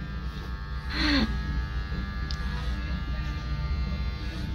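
Electric hair clippers buzzing steadily while trimming hair at the nape of the neck, with a brief voice about a second in.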